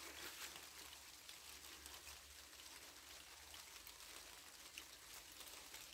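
Light rain falling: a faint, even patter with scattered single drops ticking.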